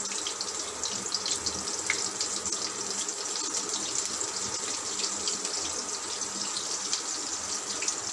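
Batter-coated bottle gourd (lauki) pakoras shallow-frying in hot oil in a steel kadhai: a steady sizzle with fine crackles.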